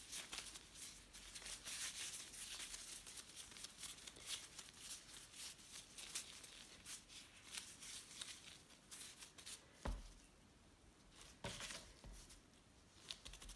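Faint crinkling and rustling of disposable plastic gloves as hands knead and round a ball of bread dough. The rustling thins out near the end, with a soft thump about ten seconds in and another a second or so later.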